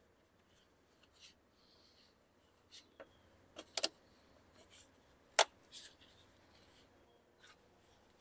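Spring clips on the 2005 BMW Z4's air filter housing being snapped shut: a series of sharp clicks, the loudest a double click a little before four seconds in and a single click about five and a half seconds in, with a few fainter clicks between.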